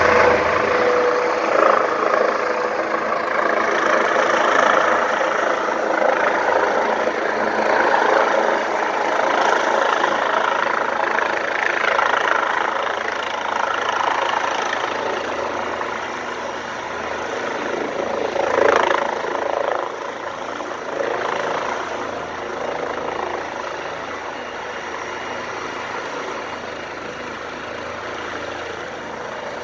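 Medevac helicopter coming in to land, its rotor and turbine running loud and steady. The sound eases off in the second half, with a brief swell near the middle.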